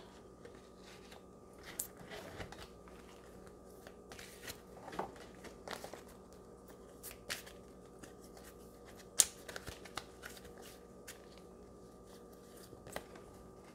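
Oracle cards being shuffled and handled: scattered soft clicks and riffles, with one sharper snap about nine seconds in, over a faint steady hum.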